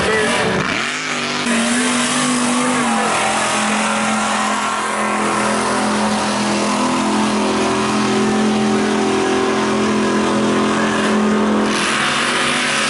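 Mega truck's supercharged big-block V8 running hard at high revs. It dips and sweeps in pitch about a second in, then holds a steady high-rpm note while the truck churns down the mud track.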